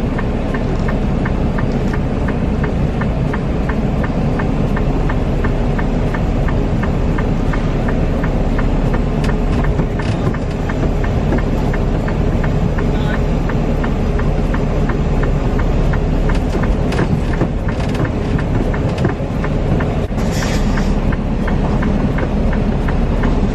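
Semi truck's diesel engine running as it drives slowly, heard from inside the cab: a steady low rumble, with a light, evenly spaced ticking over it through the first half and a short hiss near the end.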